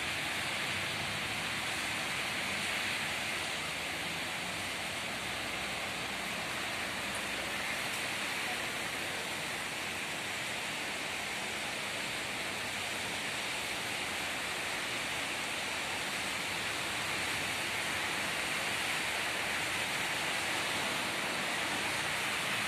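Heavy rain falling, with water running off: a steady, even hiss.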